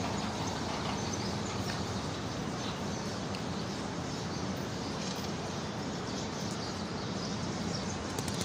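Steady outdoor street ambience, an even wash of city noise with faint, scattered bird chirps.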